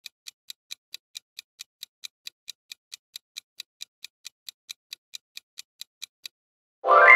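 Countdown-timer ticking sound effect, a fast even clock tick about four to five times a second, which stops about six seconds in. Just before the end a loud ringing chime starts suddenly and begins to fade, marking the timer running out.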